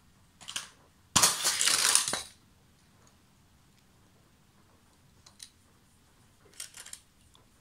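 Die-cast toy cars clicking and clattering against a plastic car-transporter toy as they are handled, with a loud rasping rattle lasting about a second, a second in, and a few faint clicks later.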